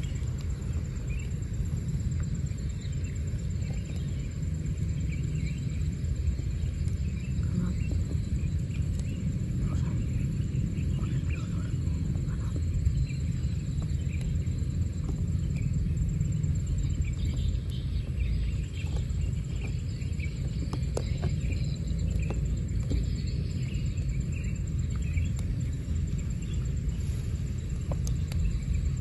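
Outdoor ambience: a steady low rumble, with faint bird chirps here and there.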